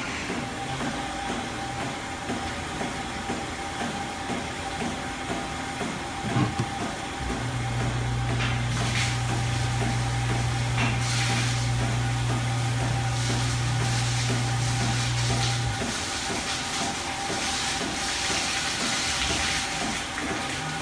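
Dairy milking-parlor machinery running: a steady hiss from the milking units and vacuum lines with a steady whine, and a low motor hum that comes on about seven seconds in and cuts off about eight seconds later. A brief knock about six seconds in.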